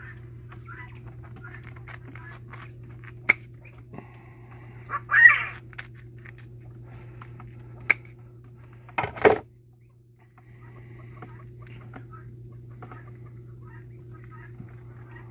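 Spring-loaded fishing scissors snipping through a dead coturnix quail: a few sharp clicks and a louder crunch about nine seconds in, over a steady low hum. About five seconds in comes a short bird-like call, the loudest sound, of the kind a freshly killed quail makes when air left in its lungs is pushed across its vocal cords.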